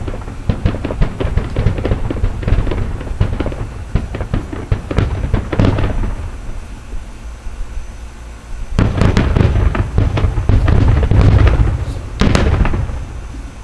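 Aerial firework shells bursting in a rapid barrage of booms and crackles. The barrage eases about six seconds in, picks up again densely about three seconds later, and fades near the end.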